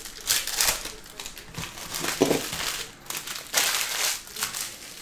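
Foil trading-card pack wrapper crinkling in several bursts as it is handled and opened.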